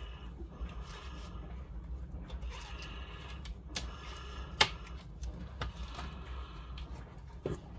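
Small clicks and light scraping of plastic laptop parts being handled during a Chromebook screen replacement, with one sharper click about four and a half seconds in, over a steady low hum.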